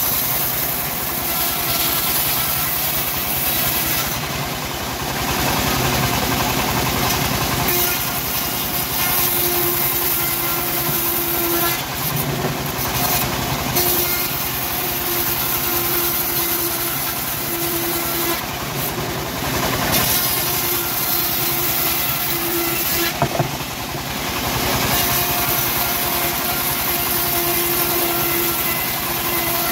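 Homemade bandsaw mill running steadily while its blade rips a wooden plank lengthwise. The high cutting noise swells and fades several times as the plank is pushed through the blade, and a single sharp knock comes about two-thirds of the way in.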